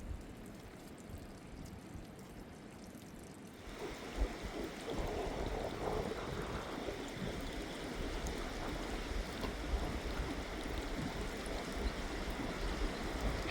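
Rushing river water, a steady noise that grows louder and fuller just under four seconds in.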